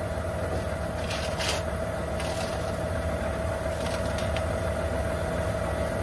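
John Deere tractor engine idling steadily with a constant whine above the rumble, and a few short scraping rustles about one and two seconds in.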